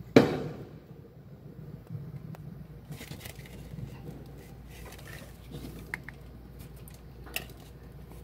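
An aerial firework shell bursting with one loud bang just after the start, its echo fading over about half a second. A few faint pops and clicks follow later.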